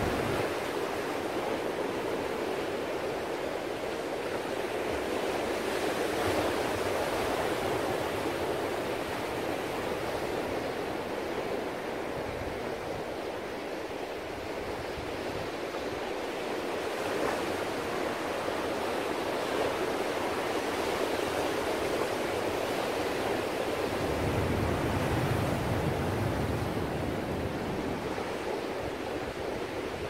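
Ocean surf: a steady rushing wash of breaking waves, with a deeper rumble swelling in about three quarters of the way through.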